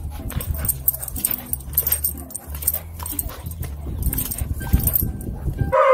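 A dog vocalising in short bursts over a steady low rumble, with many short clicks and rustles.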